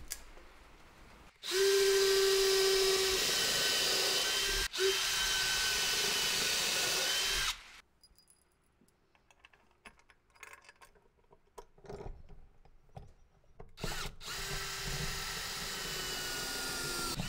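Electric drill boring mounting holes into a wooden cross piece. It runs for about six seconds with a brief break in the middle, then there is a pause of small clicks and handling noise, and the drill starts again a few seconds before the end.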